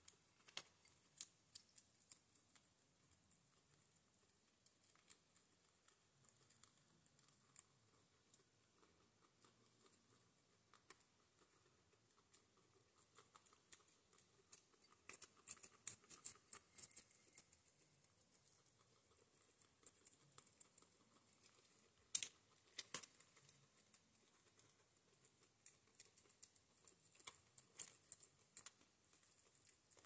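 Guinea pigs crunching dry pellet food, a stream of quick, sharp crackling clicks that come in busier flurries about halfway through and again near the end.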